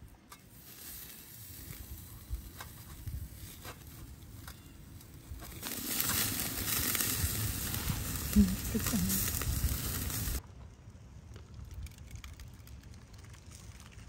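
Beef chuck flap sizzling on a wire mesh grill over a charcoal briquette, with a few light clicks of metal tongs. The sizzle grows louder about six seconds in and cuts off abruptly near the end.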